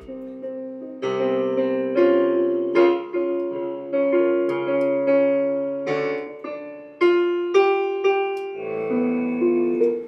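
Piano played with both hands: slow sustained chords, a new chord struck about once a second.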